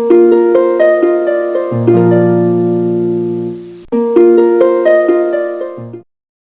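Intro music: a melody of plucked, harp-like notes in two short phrases, stopping about six seconds in.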